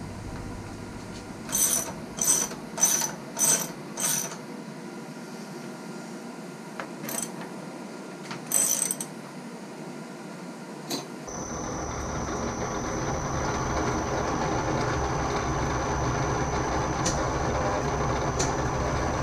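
A run of five sharp metallic clicks, then a few more, as the aluminium block is set in the milling vise. About eleven seconds in, the vertical milling machine's spindle starts and runs steadily with a constant high whine.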